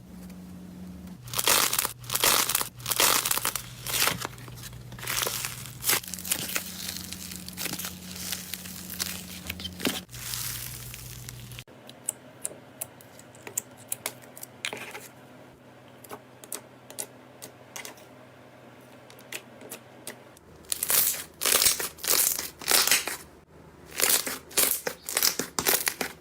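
Hands squeezing, pressing and stretching slime: bursts of short crackling noises in quick clusters, loudest near the start and again near the end, with a quieter stretch of sparse small clicks in between.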